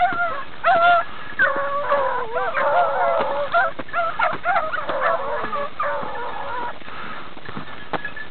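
A pack of beagles baying in overlapping, wavering cries while running a hare's scent, with scattered clicks of brush.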